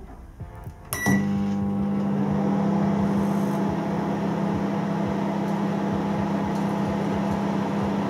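Microwave oven starting up: a short beep about a second in, then a steady hum from the running oven. It runs without arcing, its mica waveguide cover cleaned and turned over.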